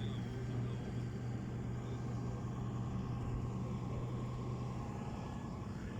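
Steady low hum of a running engine, even throughout.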